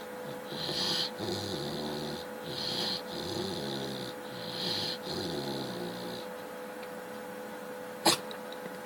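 Chow chow dog snoring in its sleep, rasping breaths swelling about every two seconds, three times, then stopping about six seconds in. A single sharp click follows near the end.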